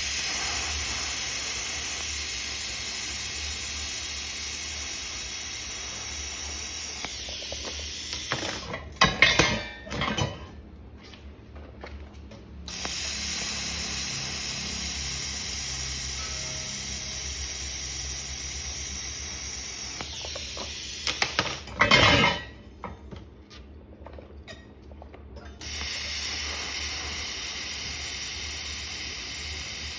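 TIG welding arc hissing steadily. It dies away twice and then strikes up again, and each pause holds a few loud, sharp clattering bursts.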